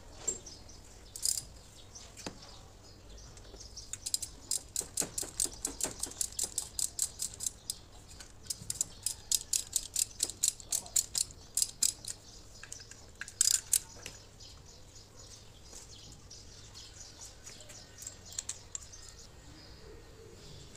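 Ratchet wrench clicking in quick runs of several clicks a second, tightening fasteners on the gearbox, with a couple of sharper knocks a little later.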